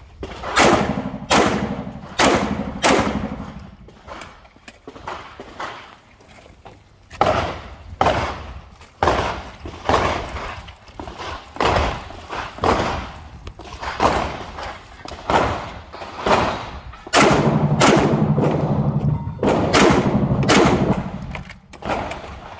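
H&K VP9L 9 mm pistol firing a long course of fire: shots come in pairs and short quick strings with pauses between, each with a short echo.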